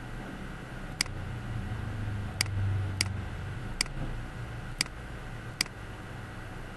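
Six sharp, single computer mouse clicks at uneven intervals, over a steady low hum and hiss.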